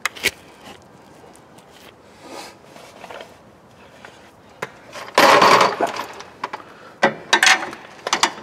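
Screwdriver levering and scraping against a car's bent sheet-metal bracket behind the front fender, bending it back toward the fender: a few sharp clicks, then two harsh scraping bursts about five and seven seconds in, the first the longer and loudest.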